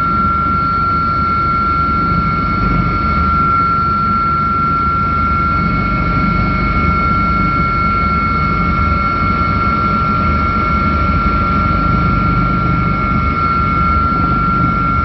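Helicopter cabin noise: a steady, loud engine and rotor drone with a constant high-pitched whine over it, unchanging throughout.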